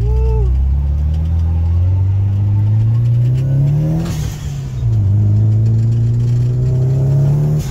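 Nissan 240SX's swapped-in SR20DET turbocharged four-cylinder accelerating hard, heard from inside the cabin. The engine note climbs through one gear and drops at a shift about four seconds in, with a short hiss. It then climbs again through the next gear and drops once more at another shift at the very end.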